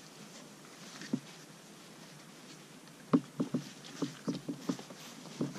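Two French bulldog puppies wrestling on a puppy pad. There is a soft thump about a second in, then from about three seconds in a quick run of short knocks and scuffles, roughly three a second.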